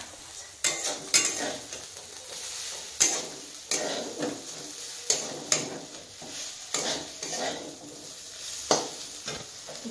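Steel ladle scraping and clinking against a steel kadai as fried vegetables are stirred, in irregular strokes, over a faint sizzle from the still-hot pan.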